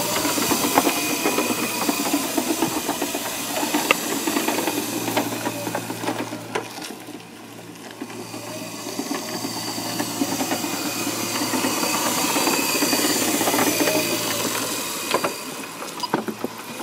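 Power wheelchair's electric drive motors running with a steady hum and whine as its wheels roll over block paving. The sound fades about halfway through as the chair moves away, then grows louder again as it comes back.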